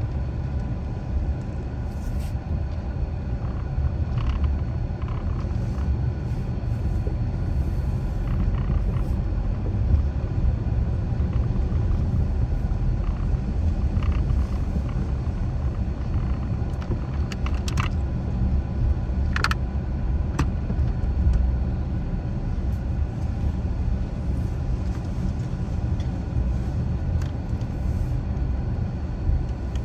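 Car driving at low speed: a steady low rumble of road and engine noise, with a few brief clicks, two of them about two-thirds of the way through.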